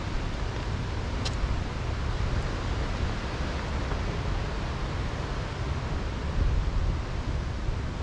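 Steady rushing roar of falling water from the Bâlea waterfall.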